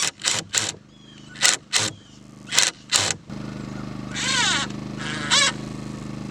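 A run of sharp knocks, like hammer blows on wooden framing, in the first three seconds. Then a steady low engine hum sets in, with two short gliding calls over it.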